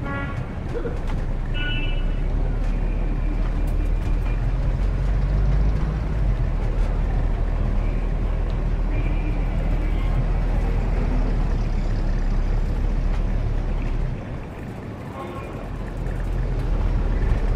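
City street traffic, with motor vehicles running as a steady low rumble. A few short high tones sound in the first couple of seconds, and the noise dips briefly about fourteen seconds in.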